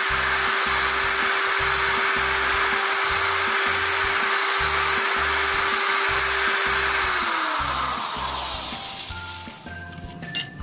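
Electric hand drill spinning a sandpaper-wrapped rod inside a motorcycle connecting rod's small-end bore, polishing out the scoring left by a seized piston pin. It runs steadily, is switched off about seven seconds in, and winds down. Background music with a steady beat plays underneath.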